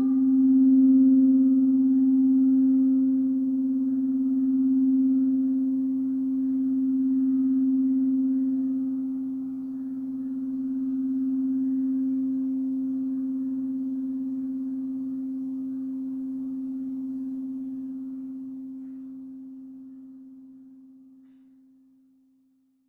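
Crystal singing bowl sounding one steady low tone with faint higher overtones, its loudness wavering gently at first, then slowly fading away to nothing near the end.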